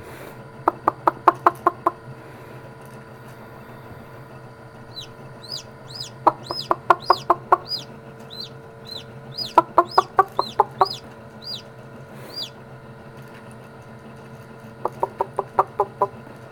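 A newly hatched chick peeping inside an incubator: a row of short high peeps, each rising then falling, from about five seconds in to about twelve seconds. An adult chicken clucks in four quick runs of seven or eight clucks each, over the incubator's steady hum.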